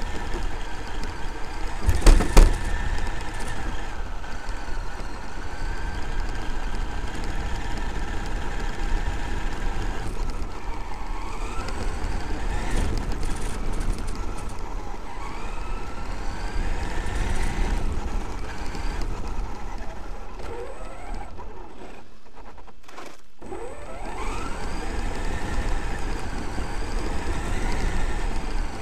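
Traxxas X-Maxx RC monster truck driving over a gravel track, its brushless electric motor whining and rising in pitch with each burst of throttle over a steady rumble of drivetrain and tyres. There is a loud knock about two seconds in, and the motor drops away briefly near the end while the truck coasts.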